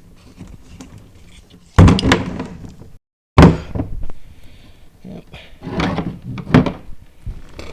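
Heavy clunks, knocks and rattles from handling parts and tools under the car: a loud one about two seconds in, another after a brief cut to silence, then a cluster of knocks near the end.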